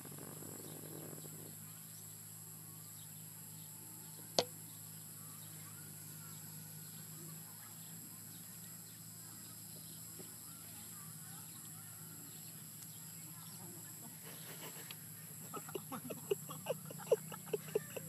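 Quiet outdoor background with a steady faint high hum. A single sharp crack comes about four seconds in, and a quick run of sharp clicks, several a second, starts near the end.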